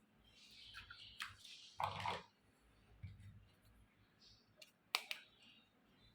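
Small plastic toy kitchen pieces being handled: a few sharp clicks and taps with soft rustling, and a brief louder scrape about two seconds in.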